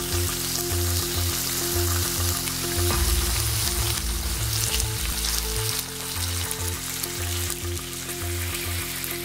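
Ground spice paste sizzling as it is sautéed in hot oil and beef fat in a stainless steel pot, stirred with a silicone spatula, frying until fragrant and browned.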